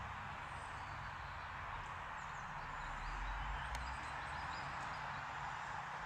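Outdoor woodland background: a steady hiss with faint, high bird chirps scattered through it, and a low rumble that comes in about halfway through.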